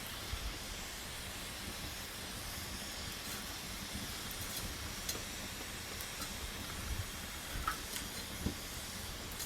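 Wood campfire burning with a steady hiss and scattered small crackles and pops.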